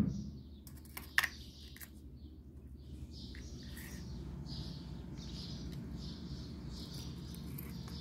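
Small birds chirping repeatedly in the background, over a steady low hum, with a few sharp clicks about a second in.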